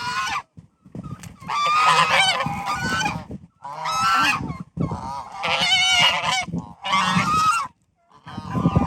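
Domestic geese honking loudly in a run of repeated bouts of calls with short pauses between them.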